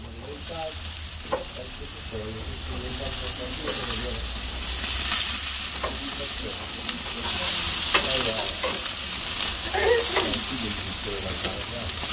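Fillet steaks sizzling on a gas barbecue grill, the hiss growing louder over the first few seconds. Metal tongs click a few times against the grill grate as the steaks are turned.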